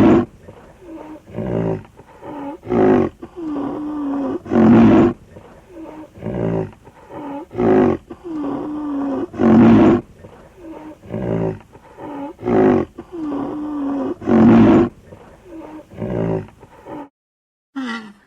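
Rhinoceros calling: loud, rough bellows about every two and a half seconds, with shorter pitched calls that waver up and down in between. The calls stop suddenly about a second before the end.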